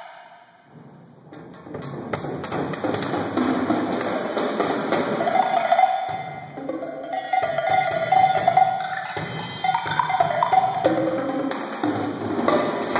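Solo multi-percussion playing on a drum kit with toms and cymbals plus a rack of small percussion: dense, fast strikes that come in after a quiet first second, with cymbal ringing over them.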